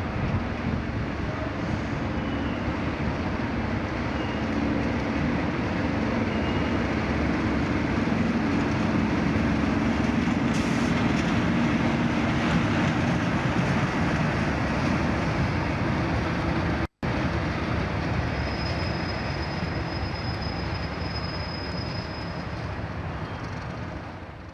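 British Rail Class 37 diesel locomotive with its English Electric V12 engine running as it passes through the station, the engine hum and wheel noise strongest as it goes by, then fading as it draws away near the end. The sound cuts out for a split second about two-thirds of the way through.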